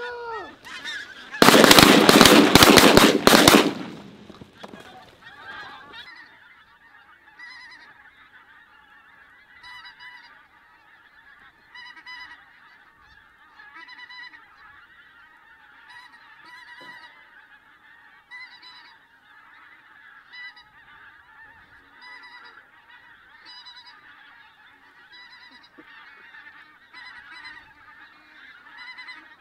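A large flock of pink-footed geese calling overhead, a continuous chorus of high honks. About a second and a half in, a loud rush of noise lasting about two seconds drowns it out.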